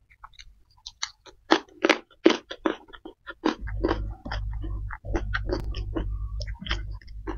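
Close-miked chewing of a mouthful, with crisp crunches and wet mouth clicks. A steady low rumble joins about halfway through, under the smaller clicks.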